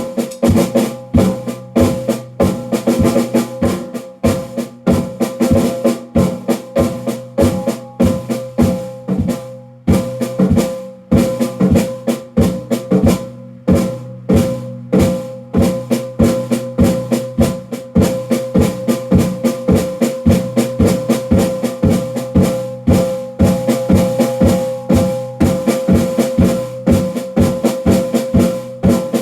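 Drums played by hand in a steady, fast rhythm, about three to four strikes a second, with a shaker-like rattle and ringing tones sustained under the beats. The playing thins briefly twice, then carries on.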